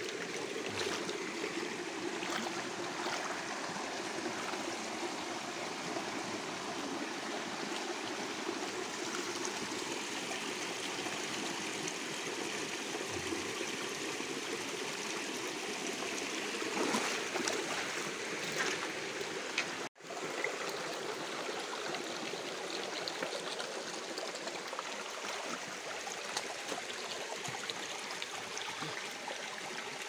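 Shallow stream running and trickling steadily over rocks, with splashing from a hand net being swept through the water and a person wading. The splashes are briefly louder about two-thirds of the way through.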